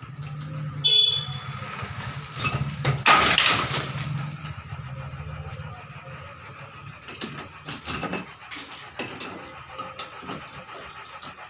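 Metal bar scraping and striking a crumbling concrete roof slab, knocking loose plaster and concrete that falls in a clatter. A ringing metal knock comes about a second in and a loud crash of falling debris about three seconds in, then scattered sharper knocks.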